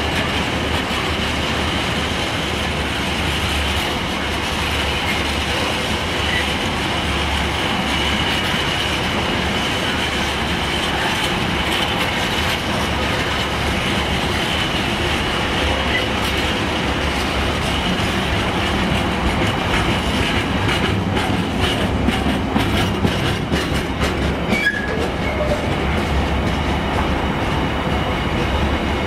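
Freight train of container flat wagons rolling past close by: a steady loud rumble and rattle of wheels on rail with a thin, continuous high squeal. Toward the end, a run of sharp wheel clicks over the rail joints.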